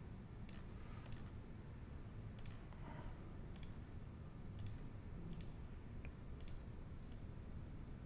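Computer mouse clicking about eight times at uneven intervals, some clicks in quick pairs, over a faint steady room hum.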